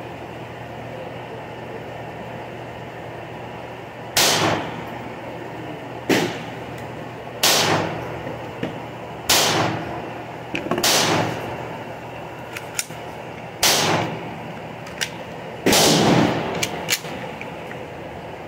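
Gunshots on a covered shooting range: seven loud reports spaced one to three seconds apart, each trailing off in a short echo under the roof, with a few fainter, sharper cracks between them.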